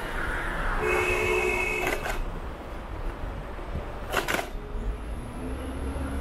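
Outdoor street ambience during a ride: a steady low rumble, a short held tone of about a second starting just under a second in, and a couple of sharp clicks.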